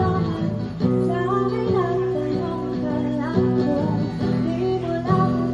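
A woman singing into a microphone over a strummed acoustic guitar.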